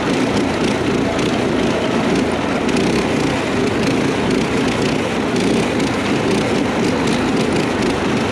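Small single-cylinder engines of a four-engined, 848cc four-wheel-drive go-kart running steadily under throttle as it drives, heard up close from beside one of the engines.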